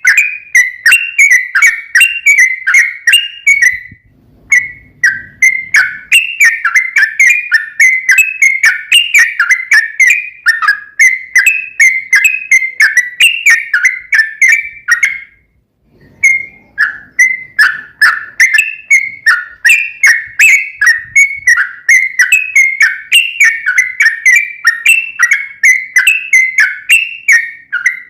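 Yellow-vented bulbul (trucukan) singing a long, rapid run of bubbly whistled chirps, about three a second, pausing briefly twice. It is the long, unbroken song ('ropel panjang') that keepers play to set other trucukan singing.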